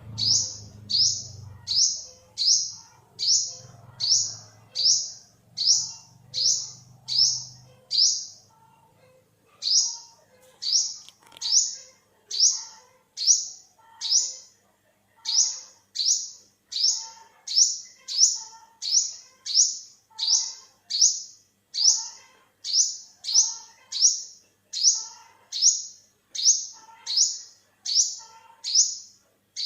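Olive-backed sunbird (Cinnyris jugularis) giving a sharp, high call over and over, about one and a half calls a second, with a short break about eight seconds in.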